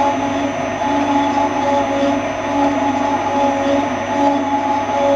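Kearns horizontal boring and facing machine cutting, its facing-head tool turning down the outside diameter of a stator housing with a ringing chatter that swells and fades in a regular beat a little faster than once a second. The chatter comes from the boring bar working close to its limit.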